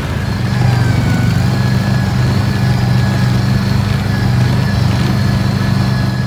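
Tracked 2005 Argo 6x6's engine running steadily as the vehicle drives through deep snow, a loud, even low hum.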